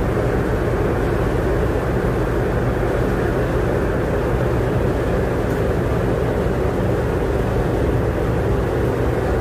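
Steady low engine drone inside a ro-ro ferry's steel car deck, with a constant low hum under it.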